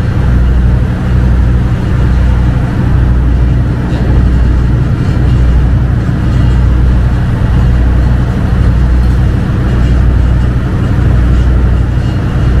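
Passenger river boat's engine running steadily under way, heard inside the passenger deck as a loud low drone that swells slightly about every second and a half.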